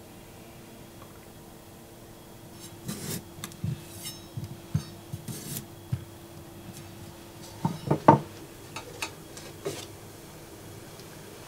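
Kitchen knife cutting small potatoes on a wooden chopping board: a few soft knocks and scrapes from about three seconds in, with a couple of louder knocks near eight seconds. A faint steady hum runs underneath.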